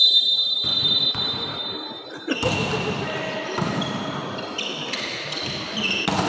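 Volleyball referee's whistle, one long blast held for about two seconds, then the noise of players and crowd in a sports hall, with short squeaks and ball thuds.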